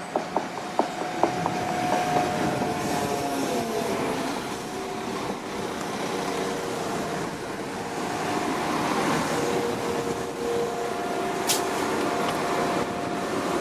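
West Midlands Railway Class 172 Turbostar diesel multiple unit running in along a station platform. A quick run of wheel clicks over rail joints opens the sound, followed by steady engine and transmission tones with a short falling pitch. A brief sharp hiss comes near the end.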